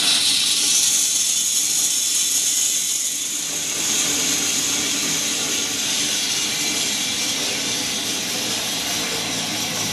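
Small drum coffee roaster running with a steady loud hiss from its gas burner and blower while green coffee beans are poured from a metal bowl into its funnel hopper, charging it for a roast; the pour is loudest in the first three seconds or so.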